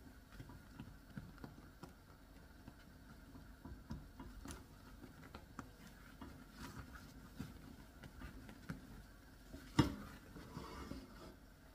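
Silicone spatula stirring thick caramel sauce in a stainless steel saucepan: faint scraping and soft taps against the pan, with one sharper knock near the end.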